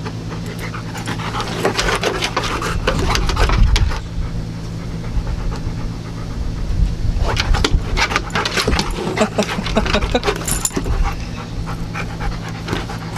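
Golden retriever panting hard in the heat, in two spells with a lull of a few seconds between them.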